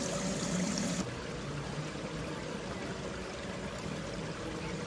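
Water splashing and trickling from a small bubbler fountain jet in a round shallow pool, a steady rush. It becomes slightly quieter from about a second in.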